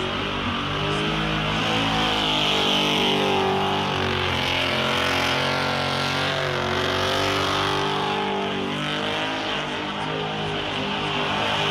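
Methanol-injected small-block V8 running hard through a burnout, its pitch wavering up and down as the throttle is worked, over a steady hiss of spinning tyres.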